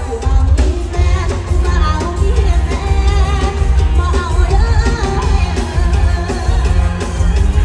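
A woman singing a Thai pop song into a microphone over loud amplified band music with a heavy, steady bass beat.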